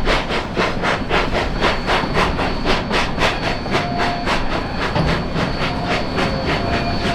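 Narrow-gauge steam locomotive D&RGW 491, a K-37 2-8-2, working under steam: a steady, even exhaust chuff at about four beats a second over a hiss.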